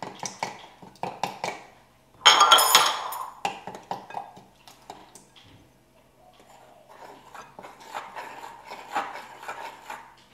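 Metal utensil clinking and scraping against a glass mixing bowl as batter is stirred, with a louder clatter of about a second some two seconds in.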